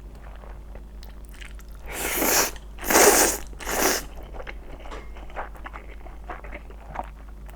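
Close-miked mouth eating sounds: soft chewing clicks throughout, with three loud, noisy mouthfuls about two, three and nearly four seconds in.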